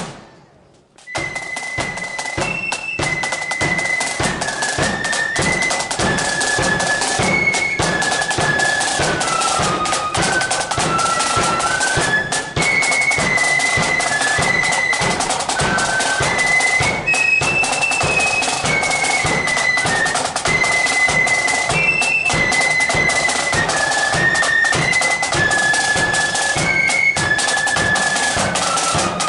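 Marching flute band playing a tune, the flutes carrying one high melody line over steady snare and bass drums. The sound drops out briefly at the very start and comes back in about a second in.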